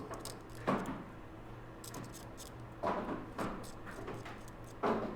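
Small tools and parts being handled on a microsoldering workbench: a handful of short, sharp clicks and knocks spread over the few seconds, over a faint steady low hum.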